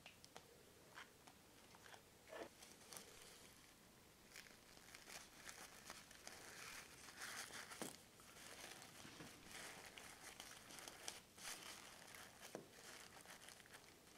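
Faint rustling and crinkling of crepe paper roses being handled and pressed into place, with a few soft taps.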